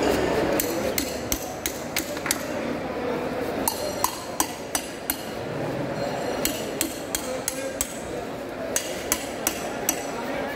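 A ridged metal rod striking the back of a knife blade to drive it down through a large fish's backbone. The sharp metallic taps come in runs of five or six, about three a second, with short pauses between runs.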